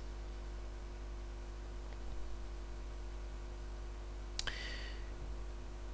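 Steady low electrical hum, with one sharp click a little over four seconds in.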